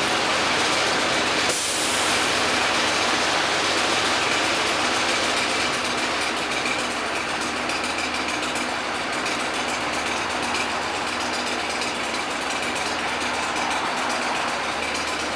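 A large engine running steadily at idle, with a brief sharp sound about a second and a half in.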